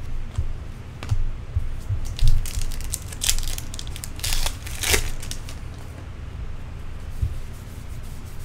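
Trading card pack wrapper torn open and crinkled by hand, the loudest crackling rips between about two and five seconds in, with light clicks and rustles of cards being handled around it.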